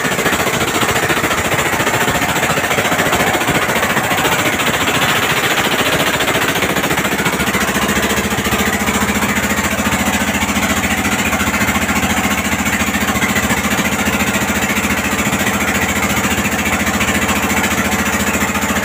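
A fishing boat's engine running with a fast, steady knocking; a steady low hum settles in about six seconds in.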